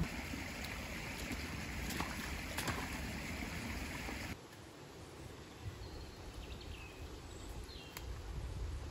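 Shallow woodland stream babbling over stones, with a few sharp clicks. About four seconds in it cuts off abruptly to quieter woodland ambience with a few faint bird chirps.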